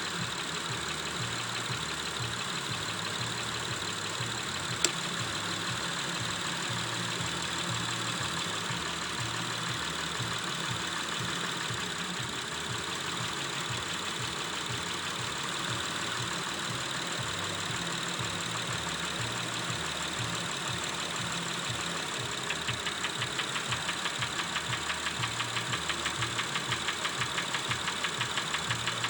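Engine idling with a rapid, regular knock, taken for a cylinder knock. The knock grows louder and sharper about three-quarters of the way through, and there is one sharp click a few seconds in.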